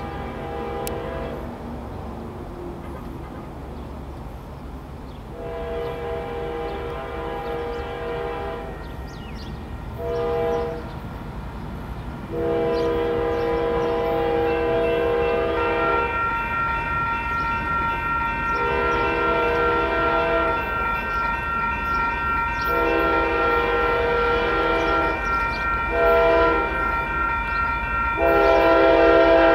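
Diesel locomotive's air horn sounding the grade-crossing signal, long, long, short, long, twice over, growing louder as the train approaches. A steady ringing tone, typical of a crossing warning bell, joins about halfway through.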